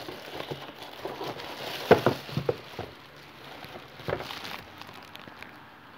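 Packaging crinkling and rustling as a power drill and its accessories are handled in their box, with a few sharp knocks, the loudest about two seconds in and another about four seconds in.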